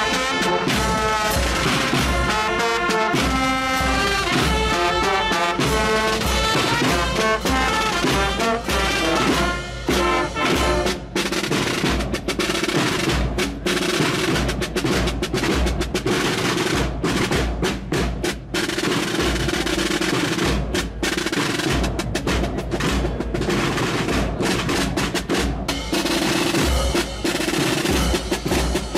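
Marching band of brass and snare drums playing a processional march. The brass melody is up front for the first ten seconds or so, then snare drums and rolls take over under a held brass note.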